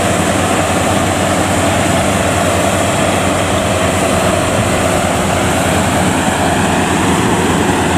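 World WD102 Plus rice combine harvester running under load as it cuts rice: a steady, loud drone of its diesel engine and threshing machinery, with no change in pace.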